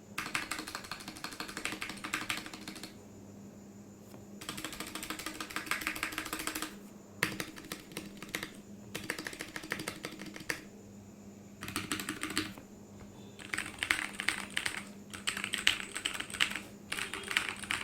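Typing on a Capturer KT87 mechanical keyboard with lubed tactile Kailh Box Brown switches, a tape-modded and foam-filled case, and GMK-profile keycaps. Rapid runs of keystrokes come in bursts, with brief pauses of about a second between them.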